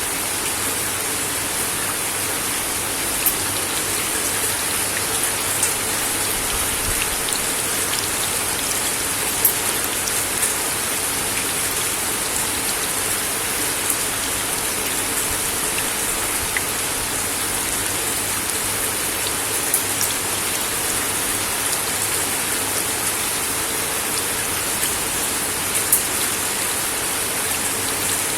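Steady rain falling on a wooden deck, an even hiss with scattered louder drops ticking on the boards.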